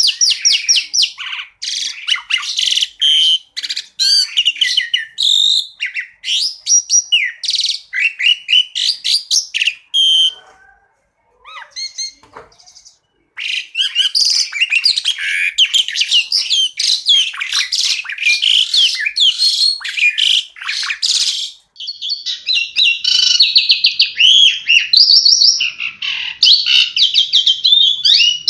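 Asian pied starling (jalak suren) singing a fast, varied run of chattering and whistled phrases. About ten seconds in the song drops to a few faint calls for around three seconds before the full song resumes.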